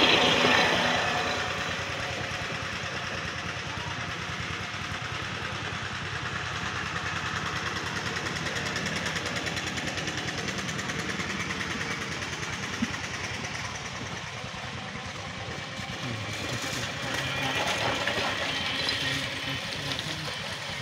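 An engine running steadily, with an even fast pulsing.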